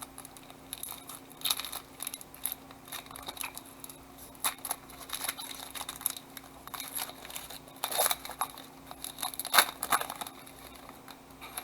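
Crinkling and tearing of a foil trading-card pack wrapper and rustling of the cards being handled, in irregular crackles with a few louder bursts.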